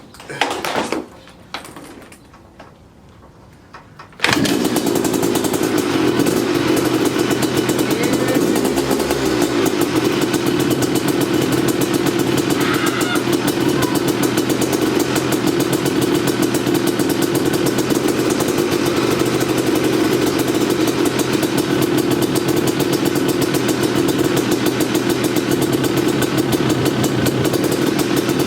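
A freshly rebuilt 1989 Yamaha YZ250's single-cylinder two-stroke engine fires up suddenly about four seconds in and then runs steadily, which the owner finds sounds good.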